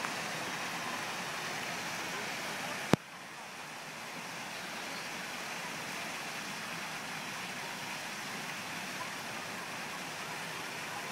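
Steady rush of falling water from an artificial waterfall, with a single sharp click about three seconds in, after which the rush is a little quieter.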